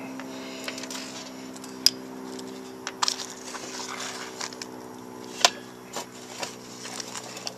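Zippo lighters being handled: scattered sharp metallic clicks and light knocks, the two loudest about two seconds in and about five and a half seconds in, over a steady low hum.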